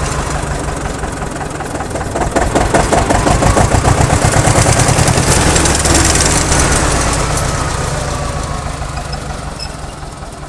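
Eicher ED 210/10 tractor's diesel engine running with an even low chug. It grows louder a couple of seconds in, then fades steadily toward the end.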